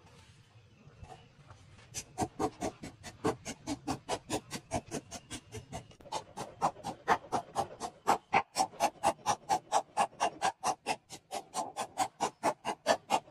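Wooden pestle pounding fresh turmeric and herbs in a clay mortar: fast, even strikes at about four a second, starting about two seconds in.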